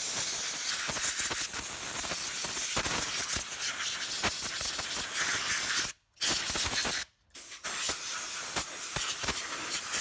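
Compressed air blasting dust out of a desktop computer case: a loud, steady hiss that stops briefly twice, about six and seven seconds in.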